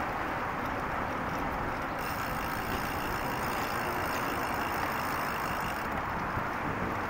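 Steady rushing noise of road traffic and riding, heard from a camera on a moving bicycle, with a faint high whine from about two to six seconds in.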